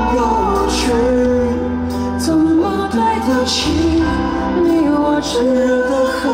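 A band plays a slow, tender pop song live: a gliding melody line over sustained chords and a steady bass, with cymbal swells now and then.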